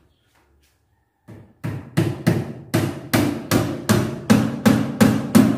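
Hammer driving nails into wooden ceiling framing overhead: about a dozen sharp blows at a steady pace of roughly three a second, starting about a second and a half in.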